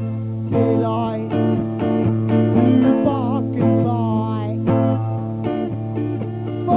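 Instrumental passage of a band recording: plucked electric or acoustic guitar lines, some notes bent in pitch, over a steady low sustained drone.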